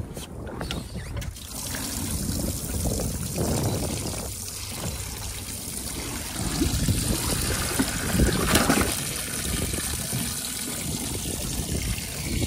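Water running from the inlet pipe into the boat's live-well tank, a steady trickling and splashing as the tank fills, with a brief louder surge about eight and a half seconds in.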